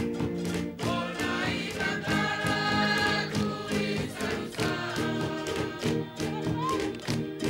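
A Tongan group of singers performing a dance song in harmony, several voices holding and changing notes together, as accompaniment for a solo dance.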